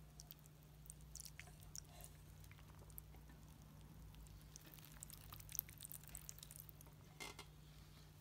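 Faint patter and drips of water from a small watering can's rose falling onto pebbles in a plant pot, as scattered soft ticks over a low steady hum.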